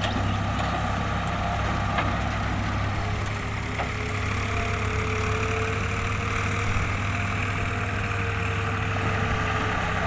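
Diesel engines of a Hitachi EX100 wheeled excavator and a farm tractor running steadily as the excavator digs and swings loads of soil, with a faint steady whine through the middle.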